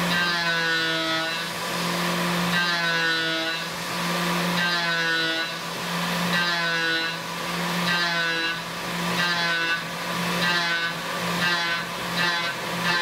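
Tormach 770 CNC mill machining aluminium with a quarter-inch end mill. The spindle runs with a steady tone, and the cutting sound rises and falls in pitch as the tool goes round its toolpath. It repeats about every two seconds and comes faster near the end.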